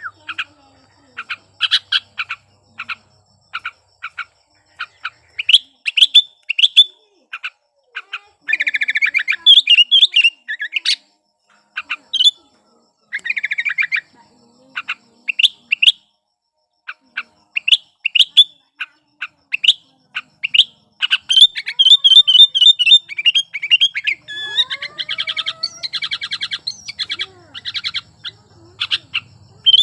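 Sooty-headed bulbul (kutilang) singing vigorously in breeding condition: a run of short, sharp chirps and quick warbled phrases, broken by brief pauses.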